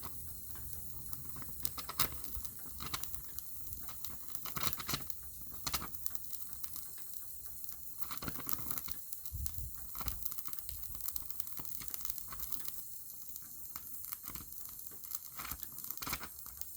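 Welding torch running on thin sheet steel of a car sill, a steady hiss dotted with crackles and spits.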